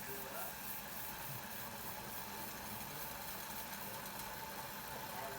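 Pot of chicken broth boiling steadily on the stove, a constant hiss with no breaks.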